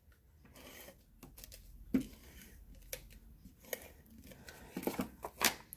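Stampin' Seal adhesive tape runner laying strips of adhesive along the edges of a cardstock panel: faint short rasps with scattered sharp clicks, a cluster of them near the end, among light paper handling.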